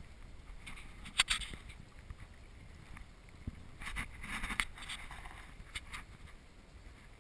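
Water splashing and trickling around a kayak moving through calm water, with a sharp splash about a second in and a cluster of splashes around four seconds in.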